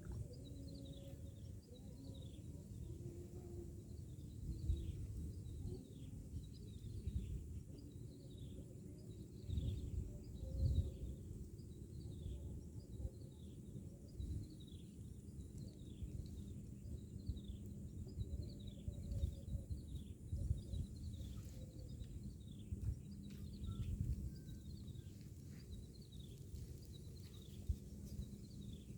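A bird calling over and over, a steady series of short falling chirps, over a low background rumble that swells now and then.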